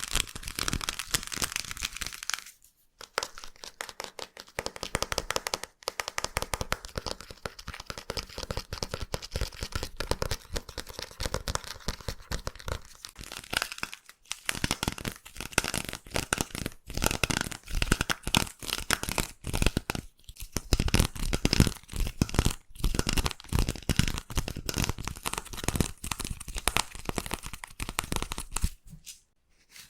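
Slime squished and pressed in ASMR ear cleaning, giving dense, irregular crackling and popping, with short pauses about 3, 6 and 14 seconds in.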